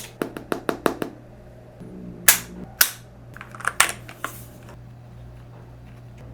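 Sharp plastic clicks and snaps from a keyboard and its packaging being handled during unboxing: a quick run of about seven clicks, then two louder snaps about half a second apart, and a few more clicks.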